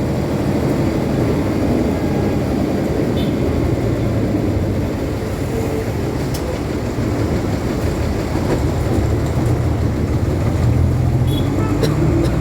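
Motor vehicle on the move: a steady low engine rumble with road noise, loud and unbroken, with a few faint clicks.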